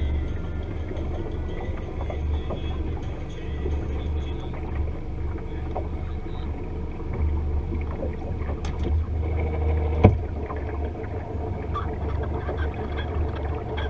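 Lake water lapping against the hull of a boat sitting still on the water, under a steady low rumble, with one sharp knock about ten seconds in.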